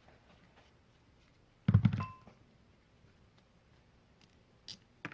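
A short cluster of knocks, about two seconds in, from a carburetor or tools being handled and set down on a workbench, followed later by a couple of faint taps.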